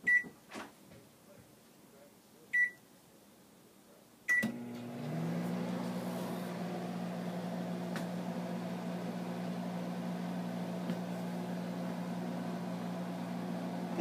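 Microwave oven keypad beeping three times as buttons are pressed, then the oven starts about four seconds in and runs with a steady hum.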